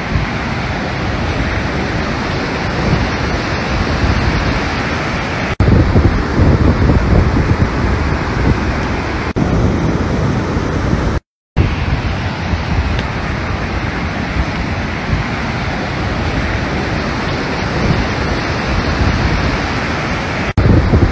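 Storm wind and rough, rushing water (surf and floodwater), with wind buffeting the phone's microphone, a steady noise throughout. The sound changes abruptly at several clip cuts, louder and deeper after the first, and drops out completely for a split second about halfway.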